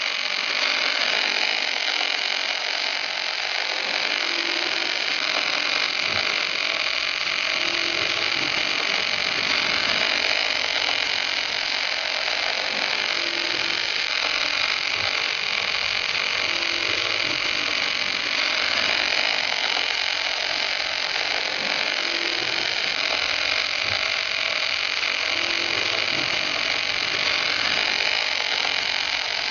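Arc welding by the torch on an HK-6A-II portable welding carriage: a steady, even hiss of the welding arc that does not let up.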